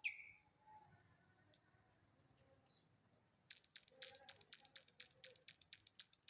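One sharp click at the very start with a short ring, then from about three and a half seconds a fast run of faint clicks, roughly seven a second.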